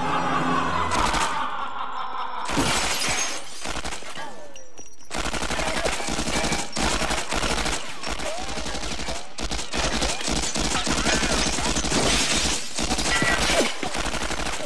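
Thompson submachine gun firing long rapid bursts as a film sound effect, with a shorter burst a couple of seconds in and then continuous fire from about five seconds in almost to the end. The bullets break glass in a car.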